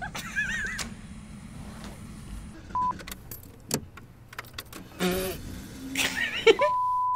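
A woman laughing in short wavering bursts, with scattered clicks, and a steady beep tone that sounds briefly just before three seconds in and again for the last half second.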